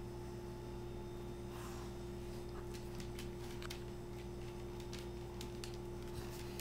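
A steady low hum with scattered light clicks and scuffs of dogs' claws and paws on a tile floor as they play with a kitten.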